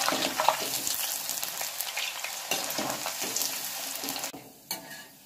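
Batter-coated cauliflower florets deep-frying in hot oil in a steel kadai: a dense, crackling sizzle of bubbling oil, stirred with a perforated steel ladle. The sizzle drops away abruptly a little past four seconds in.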